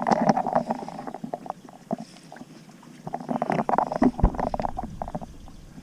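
Water slapping against a small boat's hull in irregular splashes, with a single dull knock a little after four seconds in.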